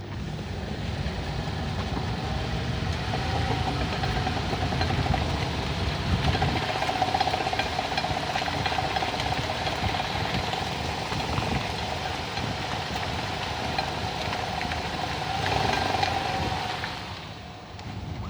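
Mitsubishi Outlander pulling away at low revs, the engine running with an extraneous rapid rattling over its hum, a noise that shows only between about 800 and 1100 rpm. It eases off near the end.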